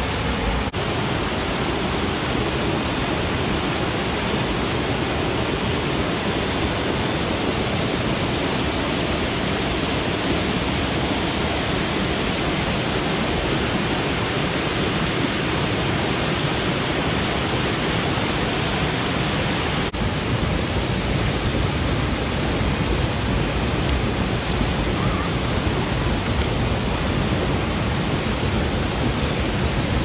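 Steady rush of whitewater from a waterfall spilling over rock ledges, close by and unbroken.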